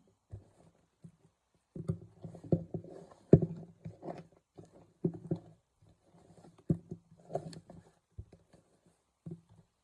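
Bare hands handling seasoned pork neck bones in a bowl: irregular knocks and rustles in uneven bursts, the loudest knock about three and a half seconds in.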